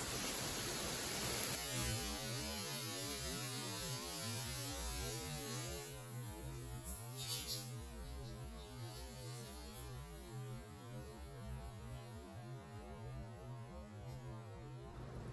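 A steady low hum with a faint warbling tone above it. A hiss of water spray fills the first second and a half and comes back near the end.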